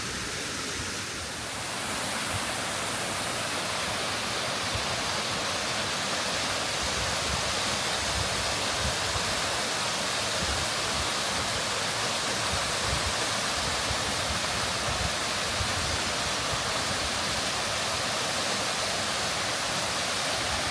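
Waterfall: water pouring down a rock wall, a steady rushing noise that gets a little louder about two seconds in.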